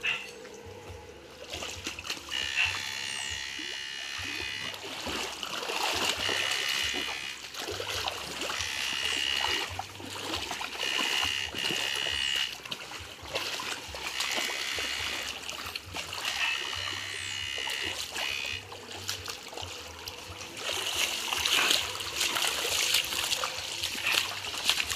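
Electrofishing shocker buzzing with a high whine in repeated bursts a second or two long, switched on and off as it is worked through the water, over splashing and trickling water.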